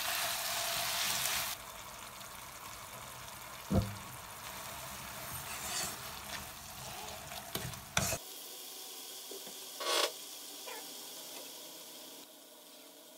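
Grated beetroot sizzling as it fries in a nonstick pan while being stirred with a wooden spatula, with a few knocks of the spatula against the pan. The sizzle is loudest at first and drops to a softer hiss about a second and a half in.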